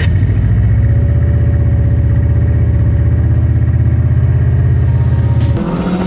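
Large diesel truck engine, an LMTV's, running at idle with a steady, fast low pulse; it stops abruptly near the end.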